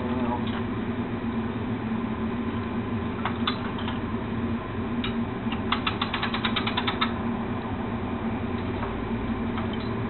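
Steady mechanical hum, with a quick run of about ten sharp clicks some six seconds in: the ratchet of a portable crane's hand winch being cranked to lift a chiller compressor.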